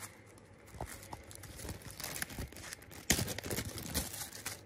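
Small plastic zip bag crinkling and rustling as plastic cable clips are taken out of it, with a few sharp clicks as the clips knock about.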